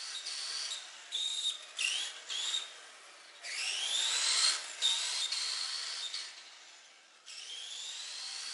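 Radio-controlled car's electric motor and gears whining: several short bursts of throttle, then two longer runs where the whine rises in pitch as the car speeds up, about three and a half and seven seconds in.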